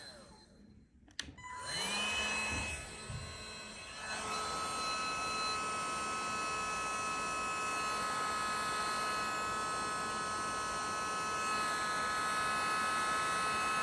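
Fire alarm signalling devices sounding a continuous alarm tone made of several steady pitches. It starts with a click and a short rising tone about a second in, and holds steady from about four seconds in.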